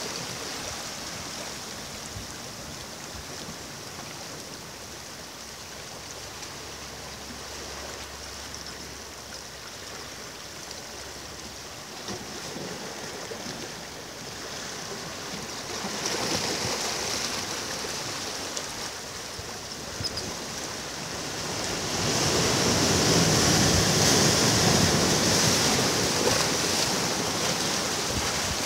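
Ocean surf on a beach: a steady wash of waves that swells about halfway through and grows loudest near the end as a bigger wave breaks and runs in.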